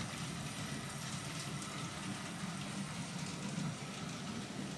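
Steady low engine-like hum from model vehicles running on the layout.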